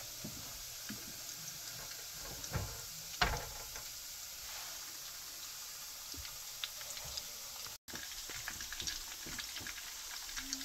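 Breaded muskie fillets frying in olive oil in a skillet over medium heat: a steady sizzle with scattered small pops, and two light knocks about two and a half and three seconds in.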